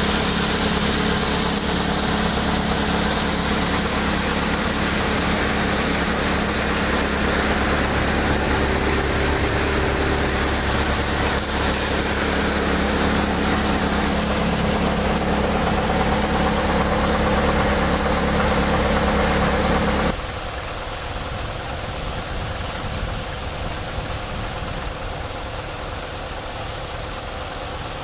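A tractor engine drives a New Vishwakarma cutter thresher threshing ajwain (carom) crop, making a steady, loud mechanical hum with the engine's drone beneath. About twenty seconds in, the sound suddenly drops to a lower level and carries on steadily.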